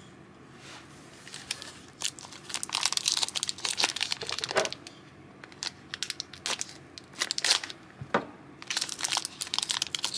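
Trading-card pack wrapper crinkling and crackling in irregular bursts as it is handled and opened.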